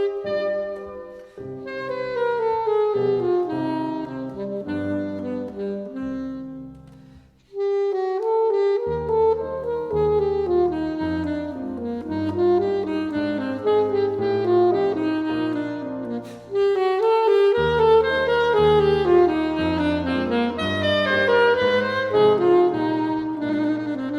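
Classical saxophone playing a flowing melody with piano accompaniment, with a short pause about seven seconds in.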